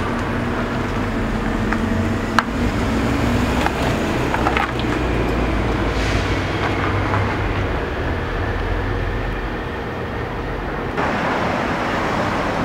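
Steady low rumble of city traffic and urban background noise, with a sharp click a little over two seconds in. The sound turns brighter and hissier near the end.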